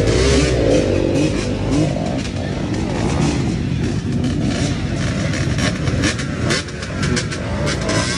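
Motocross dirt bike engine revving, its pitch rising and falling repeatedly with the throttle.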